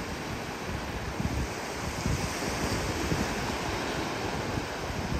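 Surf washing on the shore, swelling about two seconds in, with wind buffeting the microphone.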